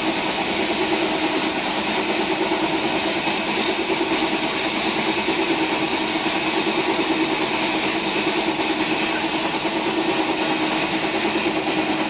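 Horizontal band sawmill running with a steady, even hum from its motor and band blade.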